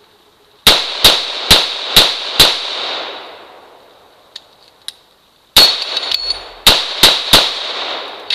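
Gunfire at a reactive target: five quick shots about two a second, then two light clicks of a reload, then one shot followed by a brief metallic rattle, then three more quick shots. A smaller knock comes near the end as the target falls back.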